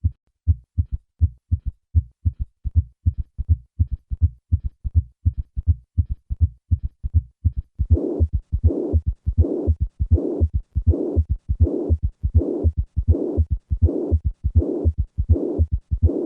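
Heart sounds with an added third and fourth heart sound, low thuds grouped into a galloping rhythm at about one and a half beats a second. About halfway through, the pansystolic murmur of mitral regurgitation joins: a rushing noise that fills each beat between the first and second sounds.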